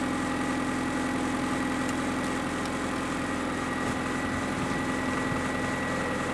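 Car engine idling steadily, just jump-started from a lithium jump starter pack.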